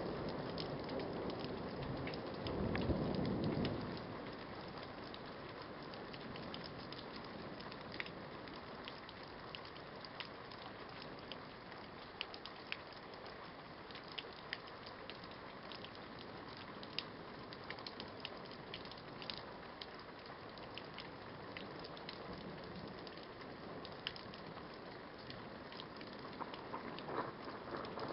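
Steady rain during a thunderstorm, with frequent sharp ticks of single strikes close by. A short low rumble of thunder swells about two to four seconds in, then fades back into the rain.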